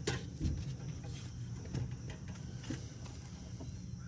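A few faint metallic clicks and scrapes as a hooked spring-puller tool works a motorcycle exhaust spring loose, over a low steady hum.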